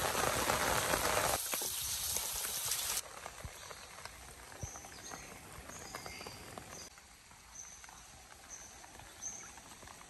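Steady hiss of rain that cuts off suddenly about three seconds in, then a quieter background with scattered light ticks and short, high bird chirps about once a second.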